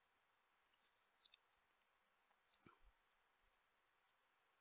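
Near silence with a few faint computer mouse clicks: a quick pair just over a second in, then a few more single clicks.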